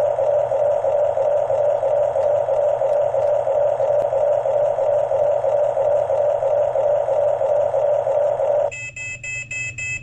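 Radio-controlled scale bulldozer giving a steady mechanical drone. Near the end the drone breaks off for about a second and a half of rapid electronic beeping, about four beeps a second.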